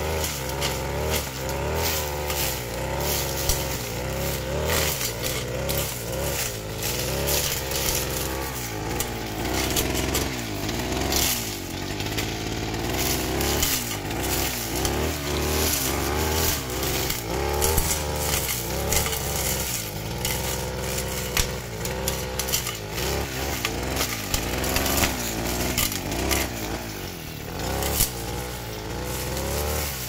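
Backpack brush cutter engine running under load while cutting grass and brush, its speed rising and falling repeatedly, with many sharp ticks of debris striking the cutter. The engine has the rough "snoring" (ngorok) note that the owner is asking about, without knowing its cause.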